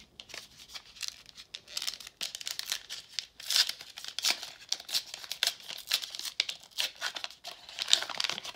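Foil wrapper of a 1991 Upper Deck baseball card pack being torn open by hand: a dense, irregular crinkling and tearing that builds from about a second and a half in.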